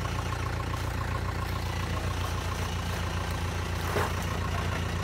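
Land Rover Perentie's Isuzu four-cylinder diesel running steadily at low speed as the truck crawls over a rock ledge on a steep off-road track.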